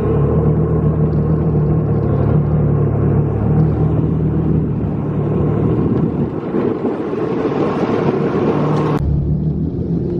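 Jet ski engine running steadily, a low even hum under a rushing noise, cut off abruptly about nine seconds in.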